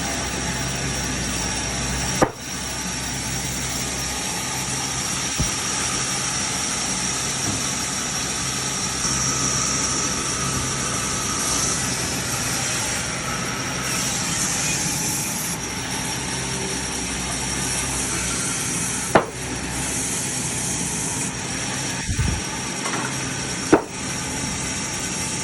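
Chainsaw running steadily while cutting a large tree, with three sharp clicks partway through.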